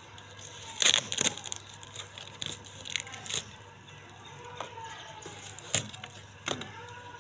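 A knife scraping and slitting through packing tape and cardboard on a parcel box: a series of sharp scratches and clicks, the loudest about a second in.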